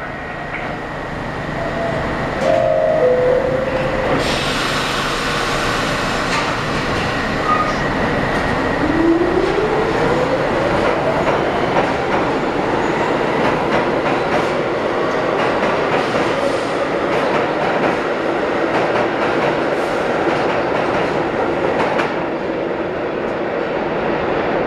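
R62 subway train leaving a station. A two-note falling door chime sounds about two and a half seconds in. Then the traction motors whine, rising in pitch as the train accelerates, and give way to a steady rumble with rapid wheel clicks over the rail joints as the cars pass.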